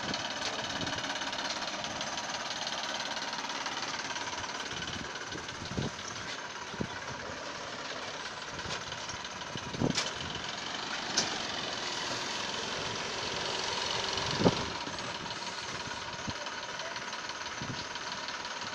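Massey Ferguson 9500 tractor's diesel engine running steadily under load as it pulls a loaded trailer through deep mud. A few short, sharp louder noises rise over it, the loudest about two thirds of the way in.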